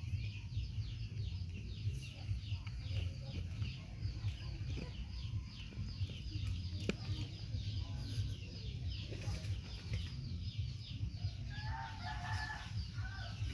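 Birds chirping: a steady run of short, high, falling chirps, several a second, with a lower call about twelve seconds in, over a low steady rumble.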